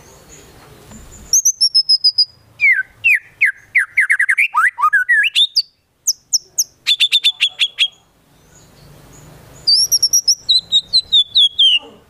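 White-rumped shama singing in loud bursts of varied phrases: fast runs of sharp repeated notes and high whistled series that fall in pitch, with short pauses between bursts. The song carries mimicked calls of other birds.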